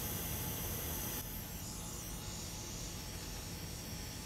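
Steady hiss of hot air blowing on the underside of a laptop circuit board to melt the solder holding the battery connector; the hiss drops slightly and loses some of its treble about a second in.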